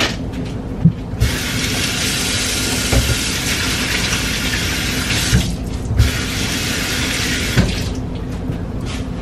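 Kitchen sink tap running in two spells, about four and a half seconds, a brief stop, then about two seconds more, with a few light knocks against the sink.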